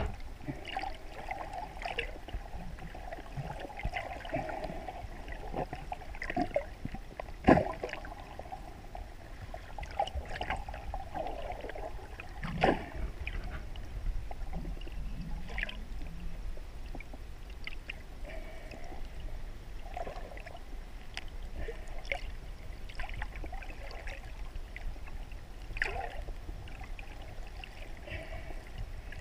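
Muffled underwater sound heard through a GoPro Hero 3+ Black's waterproof housing: a steady low rumble of moving water with scattered clicks and knocks. The loudest knocks come about seven and a half seconds in and again near thirteen seconds.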